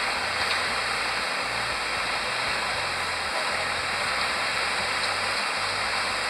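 Steady rushing cabin noise inside a Boeing 737-800 after landing: air-conditioning hiss over its engines running at idle.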